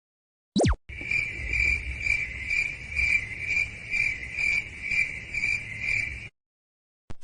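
A quick downward swoop in pitch, then the crickets-chirping sound effect: steady chirping that pulses about twice a second for some five seconds and cuts off abruptly. It is the stock meme cue for an awkward silence.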